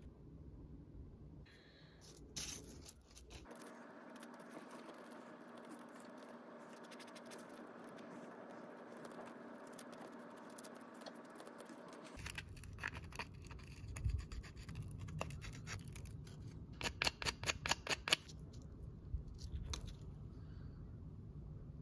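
Faint handling sounds of small hand work with a stainless wire and a clear Lexan piece on tape: light clicks, taps and scratches, with a quick run of clicks a little past the middle. Before these there is a faint steady hum.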